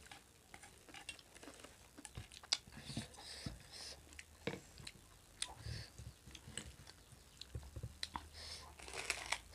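Close-up eating sounds: chewing and crisp bites of crunchy fried gol finger tube snacks, a string of scattered crunches and clicks that bunch together near the end.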